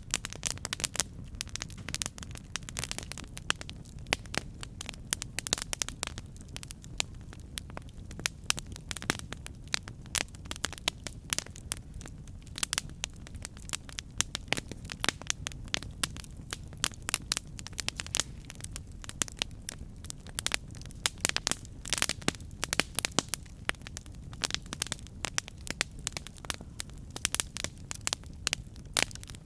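Campfire burning, with dense irregular crackles and pops over a steady low rumble of flame.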